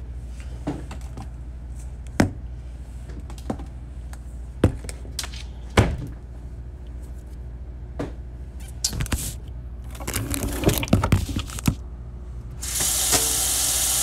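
Scattered knocks and clatters of jars and utensils being handled on a kitchen counter, busier a few seconds before the end, then a kitchen faucet turned on and running steadily.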